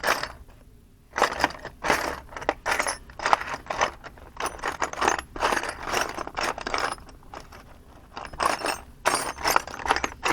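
Tiny metal drill bits clinking and rattling as they are picked out and sorted by hand: a run of irregular light clicks and jingles.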